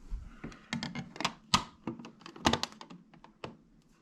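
Irregular clicks and knocks of a wall light switch being handled and shifted in its electrical box, the loudest about one and a half and two and a half seconds in.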